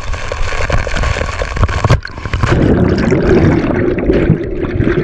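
Water rushing and splashing, growing louder and heavier about halfway through, with scattered clicks.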